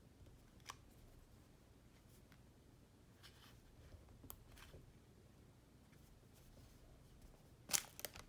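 Faint handling noises from squishy toys being picked up and set down: a few soft taps and rustles, then a sharper crinkly burst of quick strokes near the end.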